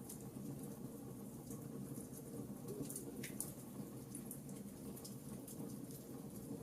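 Campfire crackling: scattered small sharp pops and ticks, with one louder crack about three seconds in, over a steady low background rush.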